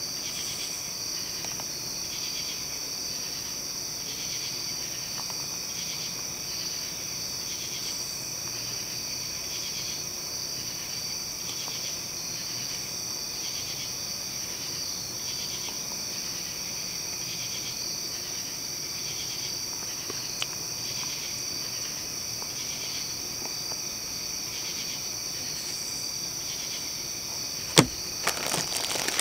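Crickets chirping: a steady high trill with a softer pulsing chirp about once a second. A single sharp click near the end.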